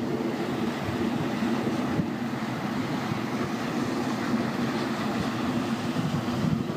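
Steady wind noise buffeting a phone's microphone, over light surf washing in shallow sea water.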